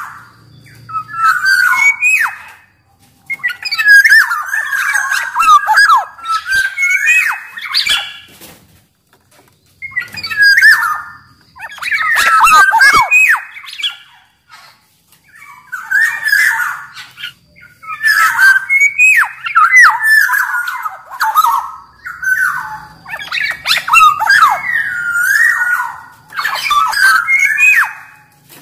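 Black-naped oriole (kepodang) calling energetically in repeated phrases of quick, pitch-bending whistles and harsher notes. Each phrase lasts a second or two, with short pauses between.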